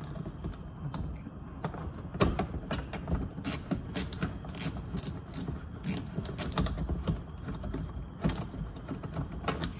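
Ratchet wrench clicking in quick, irregular runs while backing out a 10 mm screw from the plastic under-engine cover.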